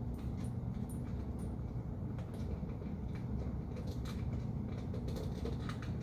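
Faint clicks and small taps of a battery wall clock being handled as its minute hand is turned to set the time, more of them in the second half, over a steady low hum.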